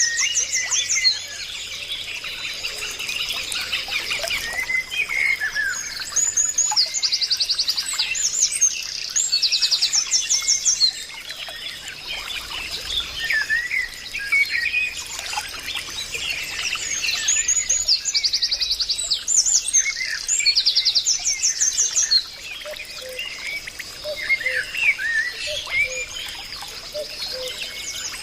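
Several birds singing and chirping together, with rapid repeated trills recurring every few seconds over a steady faint high hum.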